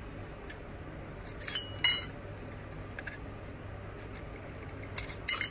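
Sharp metal-on-metal clinks of a wrench and steel bolts as the through-bolts are taken out of a starter motor. There is a pair of ringing clinks about a second and a half in, a light tick around three seconds, and another pair near the end.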